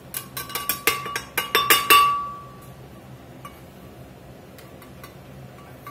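Metal bench scraper tapping against the rim of a glass blender jar to knock chopped vegetables off into it: a quick series of clinks over about two seconds with the glass ringing, then only a few faint taps.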